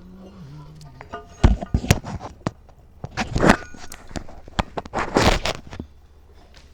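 Metal parts clanking and scraping in three rough bursts, some of the hits ringing briefly, as mower deck hardware is handled.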